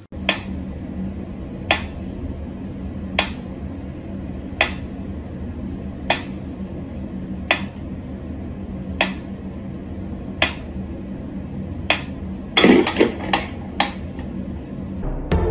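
Pyramid-style wind-up mechanical metronome ticking at a slow tempo, one sharp tick about every second and a half, over a steady low hum. About twelve and a half seconds in, a short burst of louder knocks and clatter.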